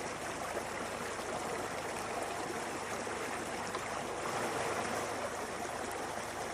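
Stream water flowing steadily, an even rushing sound with no breaks.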